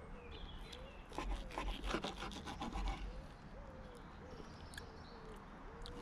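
Steak knife sawing back and forth through a grilled beef steak, the blade rasping on a wooden cutting board in quick strokes for about two seconds, starting about a second in.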